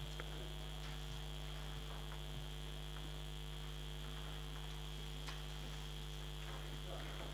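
Steady electrical mains hum in the sound system, with a faint steady high whine over it and a few faint clicks.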